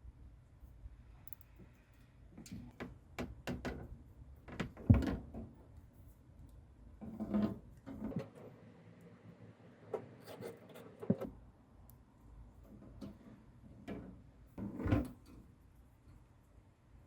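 Irregular clicks, knocks and rubbing as hard parts are handled by hand, with a sharp knock about five seconds in and a few more spread through the rest.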